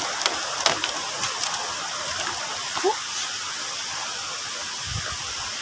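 Waterfall and stream water rushing in a steady wash, with a few light clicks and knocks in the first second and a half.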